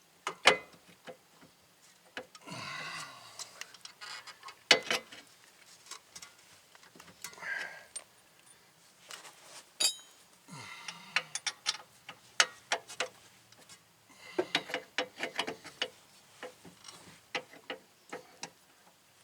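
Hand tools and steel hardware clicking and clinking in short, irregular bursts as a nut and washer are fitted and worked onto a bolt at the rear brake and hub assembly, with a quick run of clicks about three-quarters of the way through.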